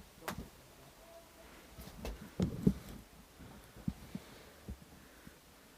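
Dull, irregularly spaced thumps and knocks of a player moving on a hard floor, likely footsteps. The loudest pair comes about two and a half seconds in.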